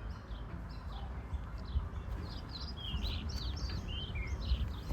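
Several small birds chirping and twittering in quick, short calls, over a steady low rumble.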